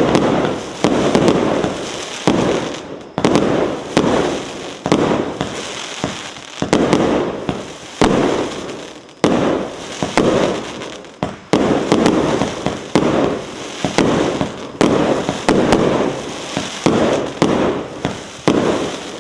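'Sochelnik' consumer firework battery firing a long salvo of shots, a bang about once a second and sometimes two close together, each dying away before the next.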